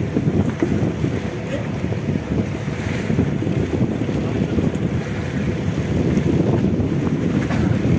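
Wind buffeting the microphone at sea: a steady, loud low rumble with sea noise underneath.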